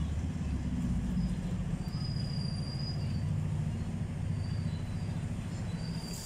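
Hong Kong double-decker electric tram running on its rails, heard from on board: a steady low rumble and hum from the wheels and motor, with a thin high squeal coming and going.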